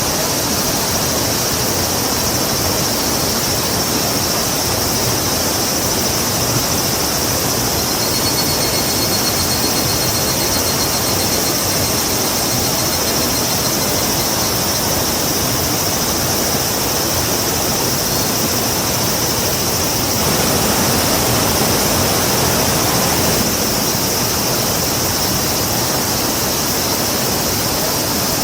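A river rushing steadily, with a faint high pulsed trill from about a third of the way in and a brief swell in the water sound about two-thirds through.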